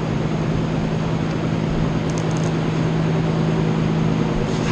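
Schwing P88 concrete pump's engine running steadily with an even hum, driving the hydraulics that stroke the pumping pistons. A few faint light clicks come about two seconds in.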